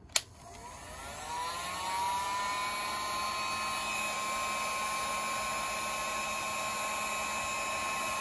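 A 1200-watt, 110-volt heat gun switched on with a click, its fan motor whining up to speed over about two seconds and then running steadily over a rush of air.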